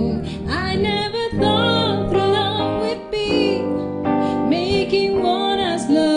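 A female jazz vocalist singing a slow song over piano accompaniment.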